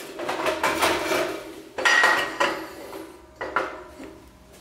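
Steel belt-grinder attachments clanking and rattling as they are handled and changed over on the grinder. It is a run of metal knocks with short ringing tones, the loudest about two seconds in.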